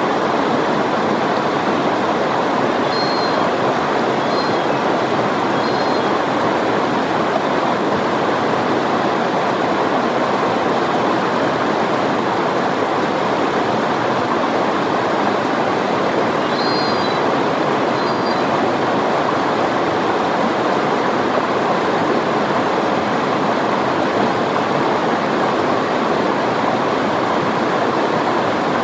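Rushing river water, a loud steady rush. A few short high chirps come twice, a few seconds in and again just past halfway.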